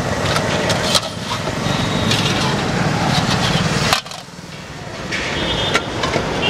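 Dough rounds deep-frying in hot oil in a large iron kadhai, a steady sizzle with sharp clicks of the metal skimmer against the pan. The sound dips sharply about four seconds in, as the fried rounds are lifted out on the skimmer, then builds again.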